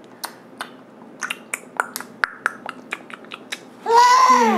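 Irregular sharp clicks and light taps, about a dozen over three seconds, as a baby picks up small pieces of food such as puffs. Near the end a loud, drawn-out vocal sound begins.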